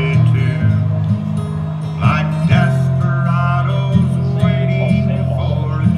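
Acoustic guitar strummed in a live country song, with a cajón keeping time.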